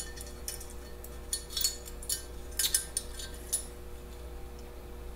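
Small metal choke parts clicking and clinking against a Zenith carburetor as they are fitted by hand: a handful of light clicks in the first three and a half seconds, over a faint steady hum.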